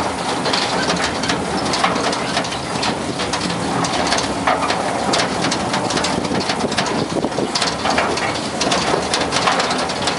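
Miniature park train under way: the open wooden passenger car rattling and clattering along its small-gauge track, a steady dense run of small knocks and clacks.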